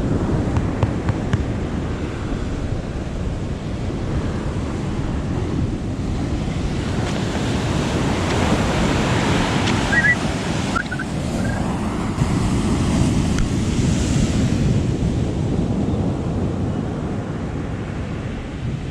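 Big surf breaking on a beach, a steady wash of waves, with wind buffeting the microphone.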